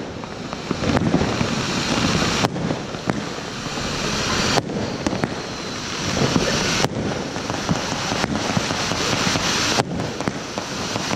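Ground fountain firework spraying sparks: a steady rushing hiss full of fine crackling.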